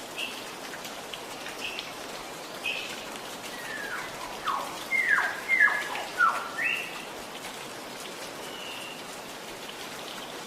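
Steady gurgling, dripping water under a songbird: a few short high chirps, then in the middle a loud run of about five quick falling whistles, a rising chirp, and one more brief note near the end.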